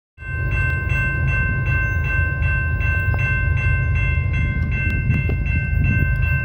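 Railroad grade-crossing warning bell ringing in a steady repeating rhythm of about two and a half strokes a second, signalling an approaching train. A low rumble runs underneath.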